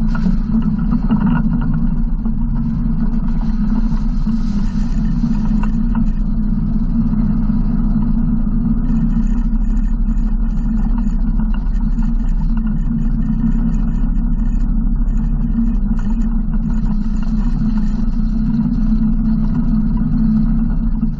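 Yamaha RMAX 1000 side-by-side's parallel-twin engine running steadily at low trail speed, a constant drone with no big revs.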